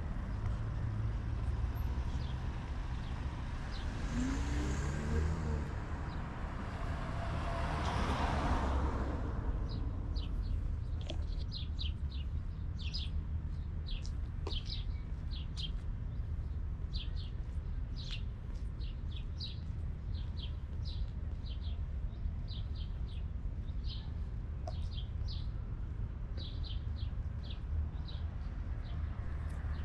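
Steady road-traffic rumble, with one vehicle passing and loudest about eight seconds in. From about ten seconds on, birds chirp over it in many short, quick calls.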